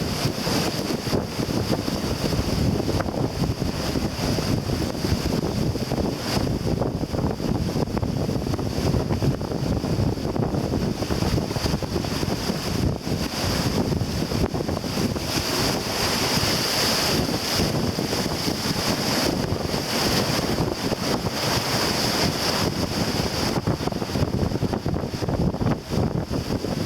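Wind buffeting the microphone over the steady rush and wash of water along a sailboat's hull as she sails heeled hard over, her lee gunwale dragging through the water.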